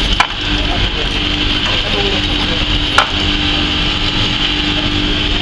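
Handheld electric fish scaler running steadily, its motor humming as the rotating head scrapes scales off a fish. There are two sharp clicks, one just after the start and one about three seconds in.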